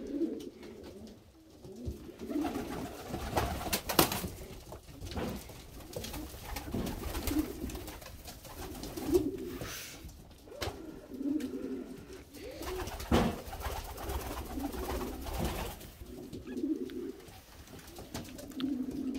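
Domestic pigeons cooing over and over, one low coo after another every second or two, with a few sharp clicks among them, the loudest about four seconds in.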